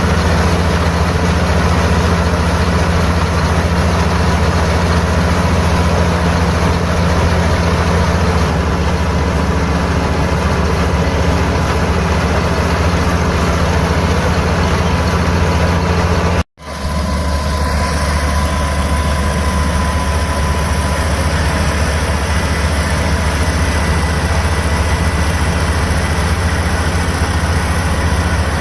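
Rice combine harvester's diesel engine and machinery running steadily with a strong low hum, broken once by a short silent gap about two-thirds of the way through.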